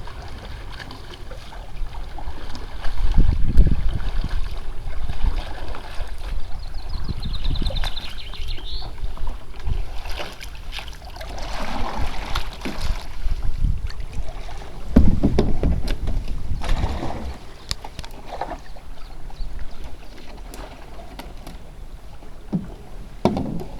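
Wind buffeting the microphone in gusts, loudest a few seconds in and again about fifteen seconds in, over a steady wash of outdoor water noise. A short, rapid high trill comes about seven to nine seconds in.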